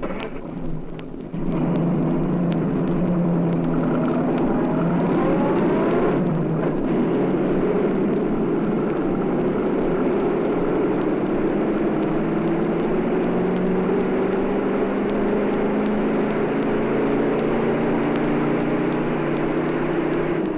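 An engine running steadily, its pitch slowly rising over the stretch; it comes in loudly about a second and a half in.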